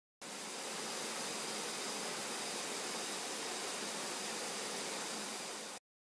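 Steady rushing of water over rocks in a jungle stream's small cascades, an even hiss that cuts in and out abruptly.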